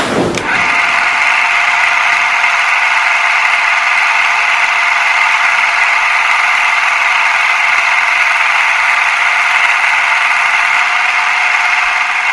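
Steady whirring rattle of a film projector, thin and tinny with no low end, running on without change.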